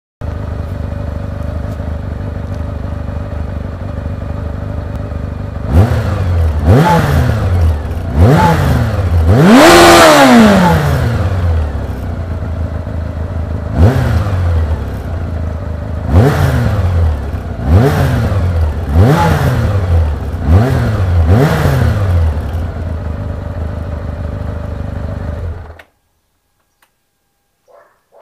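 Kawasaki ZR-7's air-cooled inline-four engine idling steadily, then revved in about nine short throttle blips, the longest and highest about ten seconds in. It drops back to idle and cuts off suddenly about 26 seconds in.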